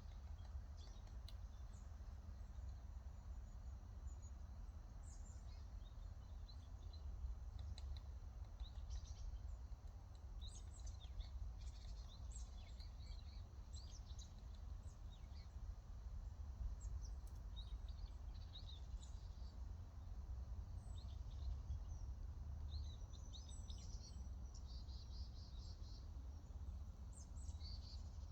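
Wild birds chirping and calling on and off, many short high notes in quick clusters, over a steady low rumble.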